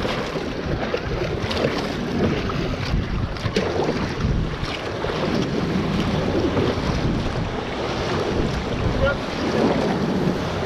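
Wind buffeting the microphone over water splashing around an outrigger canoe as it is paddled.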